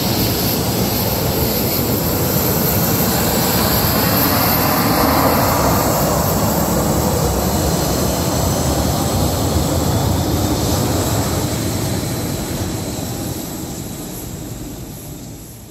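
Copa Airlines Boeing 737 taxiing past with its twin CFM56 turbofan engines running: a steady jet whine and rumble, loudest about five seconds in, then fading as the aircraft moves away.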